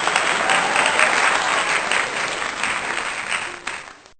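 Applause: many hands clapping at a steady level, fading out near the end.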